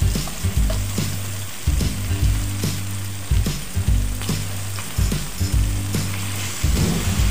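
Chicken and shiitake mushrooms sizzling in a hot wok as a sauce is poured in and stirred through. A spatula and tongs scrape and knock against the pan now and then.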